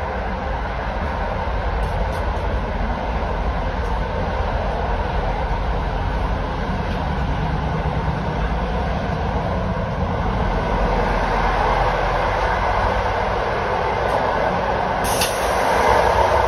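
Running noise inside a moving passenger rail coach: a steady rumble of wheels on the rails and the car body. Near the end there is a sharp click and the noise grows louder.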